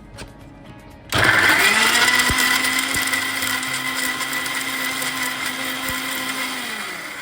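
Electric blender grinding tomatoes into a paste: switched on about a second in, its motor spins up to a steady whir, then is switched off near the end and winds down.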